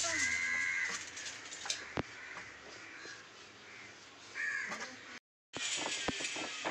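A crow cawing: a harsh call right at the start and another a little after four seconds, with a single sharp tap between them.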